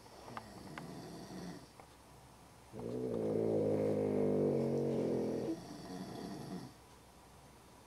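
A man and a dog asleep together, snoring: a softer breath at first, then about three seconds in one long, loud, buzzing snore lasting nearly three seconds, which trails off into a quieter breath.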